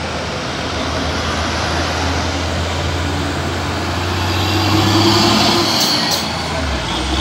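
Heavy Hino dump truck's diesel engine running as the truck drives close past. The low engine hum grows louder, peaking about five seconds in.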